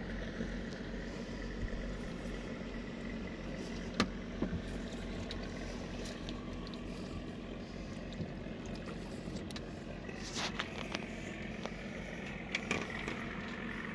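Yanmar 3T66 boat diesel engine idling steadily, with a few light knocks from handling on the boat.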